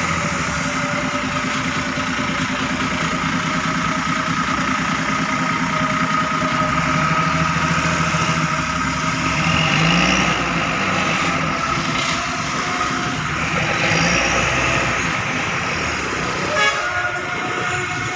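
Large bus engines running close by, with steady horn-like tones held over the engine sound and a sharp knock near the end.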